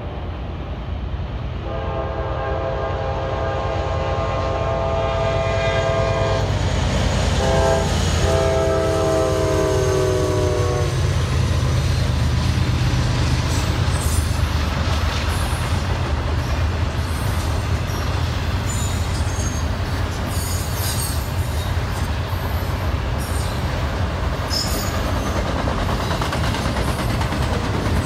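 Freight locomotive air horn sounding a long chord, then a second blast that drops in pitch as the locomotive passes. After it, a double-stack intermodal train rumbles and clacks steadily past over the rail joints, with occasional high wheel squeals.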